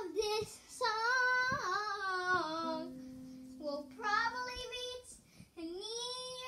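A child's high voice singing long, wavering notes without clear words, in several drawn-out phrases with short breaks. A steady low hum sits under the voice for a couple of seconds in the middle.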